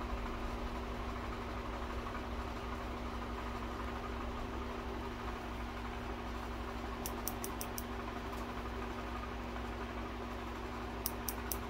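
A steady mechanical hum, with two short runs of quick, faint high ticks: about five some seven seconds in, and a faster run near the end.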